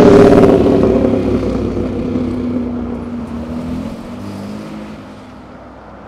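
A road vehicle's engine passing close by at speed. It is loudest as it goes past, its note drops in pitch, and it fades steadily as the vehicle moves away.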